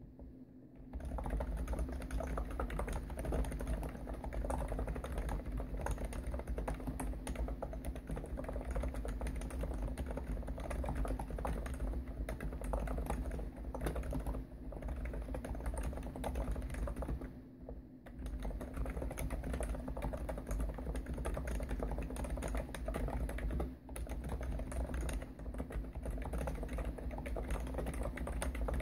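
Continuous fast typing on a Hansung GTune CHL5 electrostatic capacitive keyboard with 55 g switches and TH keycaps, starting about a second in and pausing briefly twice. A low hum from the desk resonating under the keystrokes runs through the typing.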